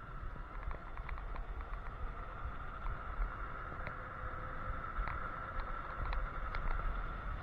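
Electric scooter riding along a paved road: wind buffeting the microphone, a steady high whine from the motor, and scattered small clicks and rattles from the handlebar over bumps.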